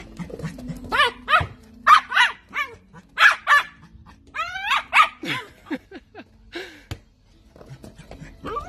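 Dachshund barking excitedly in play, short high-pitched barks coming in quick runs, with a short lull near the end.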